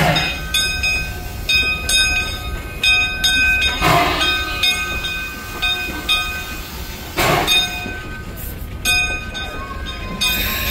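Small steam locomotive's bell ringing steadily, struck about twice a second, as the engine passes the platform. Short bursts of steam hiss come through three times, and a longer hiss of steam comes near the end.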